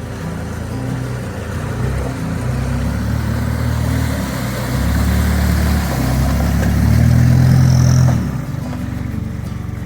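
Toyota Hilux Surf's 3.0 turbo-diesel engine and running gear driving along a dirt trail, growing louder for several seconds and easing off abruptly about eight seconds in.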